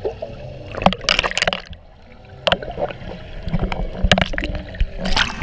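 Pool water splashing and gurgling against a camera at the water's surface. Several splashing bursts come and go over a dull underwater rumble, the longest about a second in.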